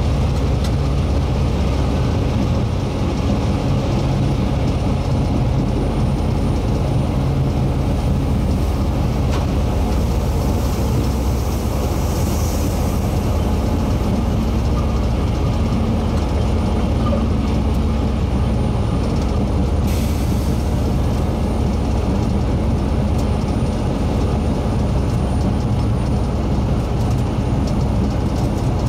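Locomotive-hauled train running along the line: a steady low engine drone with a continuous rolling rumble and rattle. A short hiss comes about two-thirds of the way through.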